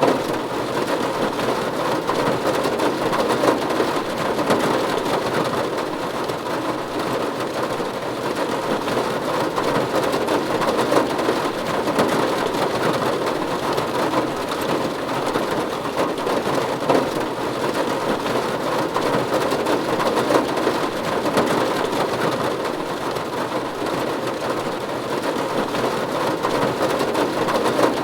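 Steady rain falling on a roof: an even, dense patter of drops that holds at the same level throughout.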